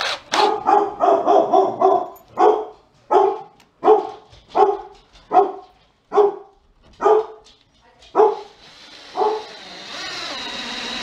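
A dog barking over and over: a quick run of barks, then single barks about one a second, spacing out. A steady hiss comes up near the end.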